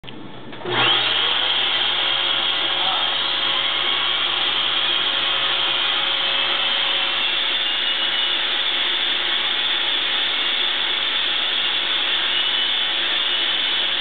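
Vacuum cleaner switched on about a second in, its motor whine rising quickly as it spins up, then running steadily while the brush nozzle is run over the cat's fur.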